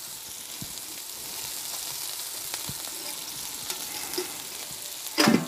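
Ribeye steak and Brussels sprouts in chicken broth sizzling steadily on a Blackstone flat-top griddle, with a few light clicks of a metal spatula against the griddle. A brief loud burst of sound comes near the end.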